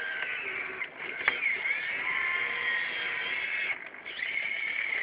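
Motors of a radio-controlled scale Hitachi EX200 excavator whining as the boom, arm and bucket move through gravel, the pitch shifting with load. The whine stops briefly about a second in and again near four seconds, with one sharp knock at about 1.3 s.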